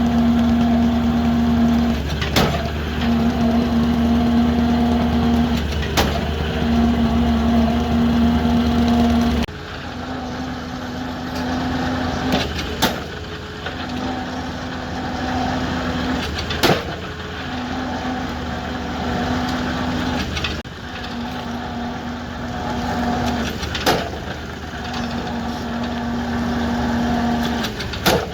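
Excavator's diesel engine running, with a humming tone that comes and goes about every two and a half seconds and a few sharp metal knocks. The sound shifts abruptly about ten seconds in and again about twenty seconds in.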